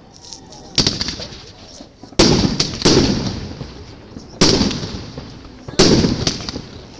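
New Year's Eve fireworks bursting: about six sharp bangs, each followed by a long fading crackle and rumble.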